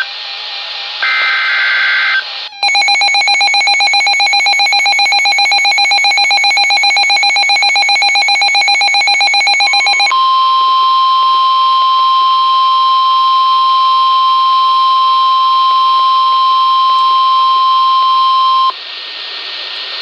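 Midland NOAA weather radio receiving an emergency alert. About a second in comes a short screechy SAME digital data burst. About 2.5 s in the radio's own alarm starts, a rapid pulsing electronic beep lasting about seven seconds. It then changes to the steady one-pitch NOAA warning alarm tone for about eight seconds, which cuts off abruptly into radio hiss shortly before the end. Together they signal a decoded warning, here a winter storm warning.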